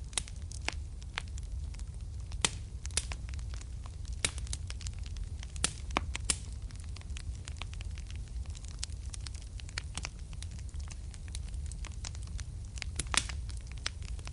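Wood fire burning in a fireplace: a steady low rumble of flames under irregular sharp crackles and pops, with the loudest pops about two and a half seconds in and near the end.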